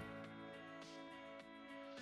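Quiet background music of sustained chords, changing chord right at the start, with a soft swish in the higher register about once a second.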